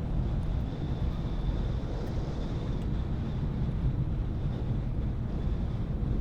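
Steady low rumble of a car driving along a road, with wind buffeting the microphone.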